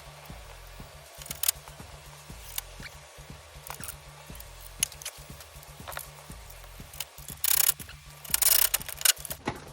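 Hand work on a wooden gate's latch hardware: scattered sharp clicks and knocks, then two louder scraping or rattling stretches near the end, over a faint steady low background.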